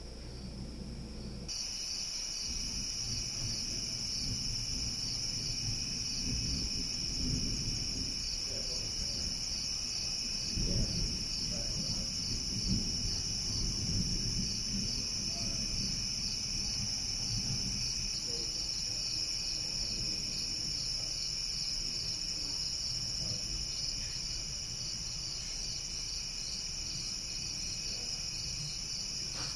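Steady, finely pulsing high trill of an insect chorus over a low rumble of distant thunder that swells around the middle and slowly fades.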